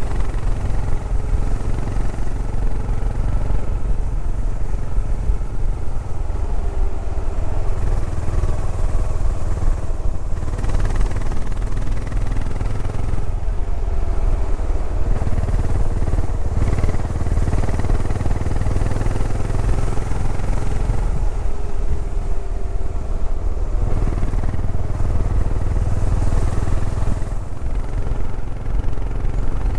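Yamaha SR400's air-cooled single-cylinder four-stroke engine running as the motorcycle cruises along a winding road, easing off and picking up again a few times. A steady low rush of wind on the camera runs under it.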